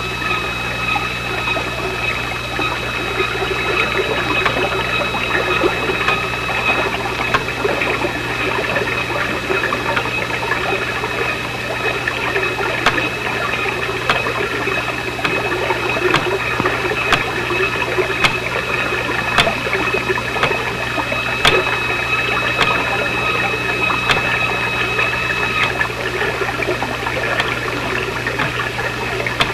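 Bubbling underwater sound effect: a steady wash of water with scattered small pops, under a steady high-pitched tone that stops a few seconds before the end.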